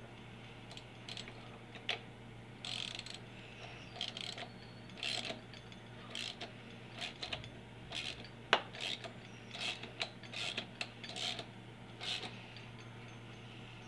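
Socket ratchet clicking in short runs as it turns the forcing screw of a two-jaw puller drawing the crankshaft pulley off, with one sharper click about eight and a half seconds in.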